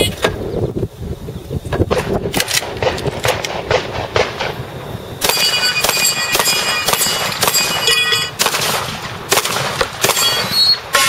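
A string of shotgun shots in quick succession, about two a second, fired at steel targets. Through the middle of the string each shot is followed by a clear metallic ring from plates and spinners being hit.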